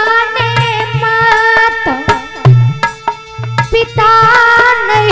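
A woman's voice singing a Hindi devotional bhajan, the melody sliding and ornamented, over steady held notes. Hand drums keep a beat with frequent sharp strokes and deep low thumps.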